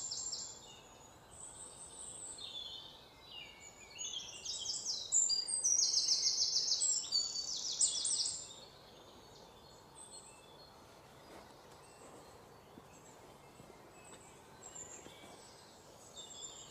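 Parrot chirping in quick, high-pitched trills. The chirps come thickest and loudest in a rapid run around the middle, then thin out to faint, scattered calls.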